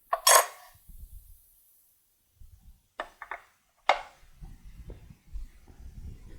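Sharp knocks and clicks of tools and parts being handled while a router table is set up: a loud clack at the start, a quick run of clicks about three seconds in, then another knock, with soft handling rumble between.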